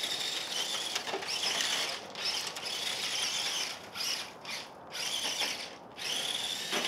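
Electric motor and gearbox of a toy-grade Grave Digger Trax tracked RC monster truck whining as it drives over gravel. The high whine stops and starts again several times.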